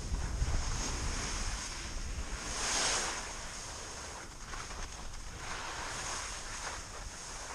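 Wind rushing over a GoPro's microphone as a skier goes downhill, with a low buffeting rumble at first, and the hiss of skis sliding and turning on snow that swells loudest about three seconds in and again near the end.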